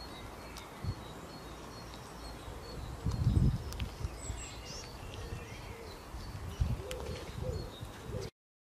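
Wild birds singing in the background: a run of short, evenly repeated high notes, then scattered chirps. Two low rumbles come about three and a half and about seven seconds in, and all sound cuts off suddenly near the end.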